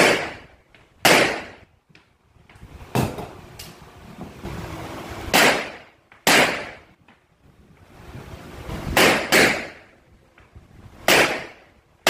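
Rock Island Armory Tac Ultra FS HC pistol being fired, about eight sharp shots at uneven intervals, with a quick pair about nine seconds in. Each shot rings out briefly in the echo of the indoor range.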